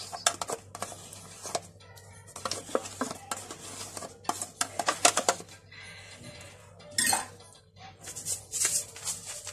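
Dishes and cutlery clinking and knocking in irregular sharp clatters.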